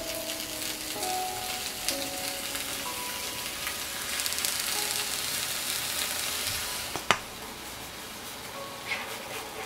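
Dried pollock sizzling in oil in a nonstick frying pan while a red chili-paste glaze is brushed over it. The sizzle grows louder about four seconds in and eases about seven seconds in, where a single sharp knock sounds.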